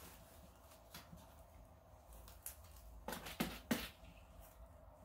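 Kittens scuffling in a cardboard box: soft scratches and light knocks of paws and claws on the cardboard, with three quick, louder knocks a little past halfway.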